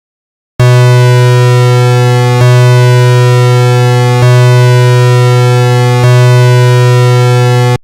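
Synthesized emergency-alert alarm tone: a loud, steady low buzz with many overtones. It starts about half a second in, restarts with a slight click about every two seconds, and cuts off abruptly near the end.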